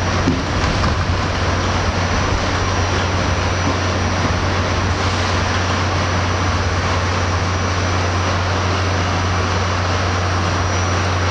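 Interior of an R68 New York City subway car running between stations: a steady, even rumble of the train in motion with a strong low hum underneath.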